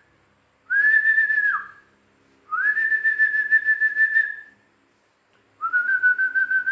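A person whistling three long, steady notes, each sliding quickly up to pitch and held for one to two seconds with short silent gaps between. The first note ends in a quick downward slide, and the third is a little lower than the first two.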